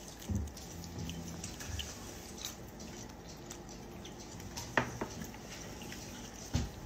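A capuchin monkey's hands moving about a kitchen counter and its food, giving faint soft taps, rustles and small ticks, with one sharp click just before five seconds in.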